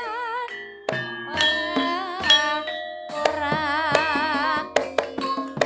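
Banyumasan-style Javanese gamelan music (gending) with a heavy bass boost: struck keyed notes and kendang drum strokes ring under a wavering, vibrato-laden melody line.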